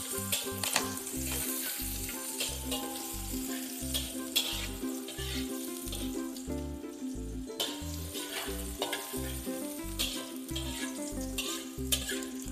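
Chopped garlic and onion sizzling in hot oil in an aluminium wok, stirred with a metal spatula that now and then scrapes sharply against the pan. Background music with a steady beat plays underneath.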